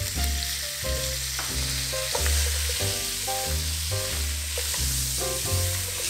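Chopped onion, celery, carrots and garlic sizzling steadily in hot olive oil in an enamelled cast-iron Dutch oven, stirred and scraped with a wooden spoon as they sauté. Background music with a moving bass line plays over it.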